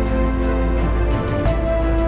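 Background music for a cinematic sequence: sustained layered notes over a heavy bass, the chord shifting about one and a half seconds in.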